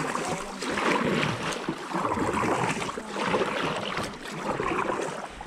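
Kayak paddle strokes on alternating sides: the blades dip and pull through shallow river water, splashing and dripping, about one stroke a second.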